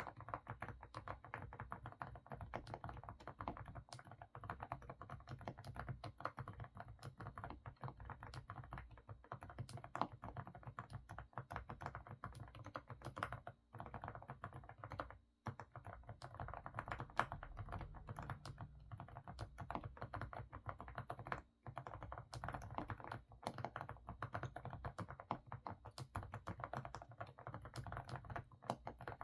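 Fast, continuous typing on an AK68 mechanical keyboard with semi-silent Didimdol (stepping-stone) switches: a full, muffled keystroke sound likened to a bubbling pot of stew. Typing stops briefly three times, around the middle and about two-thirds through.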